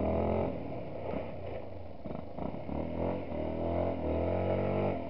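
Yamaha WR125 dirt bike engine revving up and down under hard riding on loose gravel, with the rear tyre scrabbling as the back end slides out.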